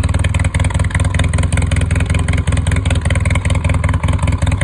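Polaris Sportsman ATV engine idling steadily with a fast, even exhaust pulse, heard close to a muffler whose baffle has been drilled out for a straight-through, louder note.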